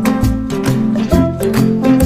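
Music: a plucked-string tune with a bass line over a steady beat.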